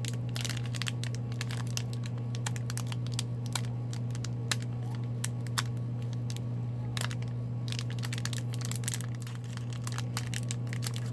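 Hockey trading cards handled by hand, a run of small clicks and rustles as they are sorted through, over a steady low hum.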